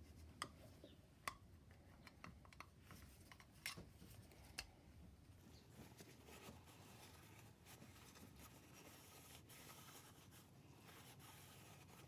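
Faint clicks and scrapes of a small screwdriver working the old seal off a plastic oil filter housing cap, then a cloth rag rubbing as the housing is wiped clean.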